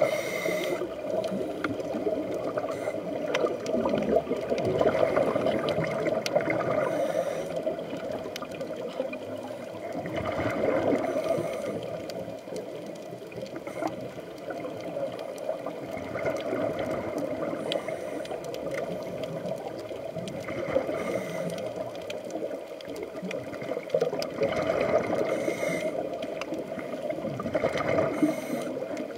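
Underwater sound heard through a camera housing: a scuba diver's exhaled bubbles gurgling in swells every several seconds over a steady muffled rush of water.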